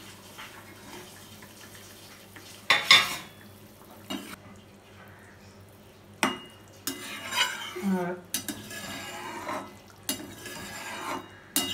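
A loud metal clatter about three seconds in, then a metal spatula stirring and scraping through watery curry in a metal pan, with several sharp clinks against the pan.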